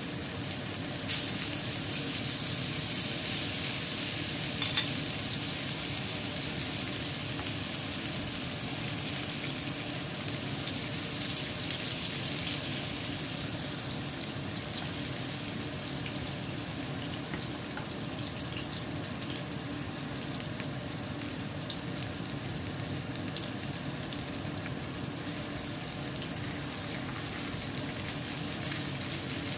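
Salmon frying in a pan, a steady sizzle throughout. A sharp click about a second in and a smaller tap near five seconds.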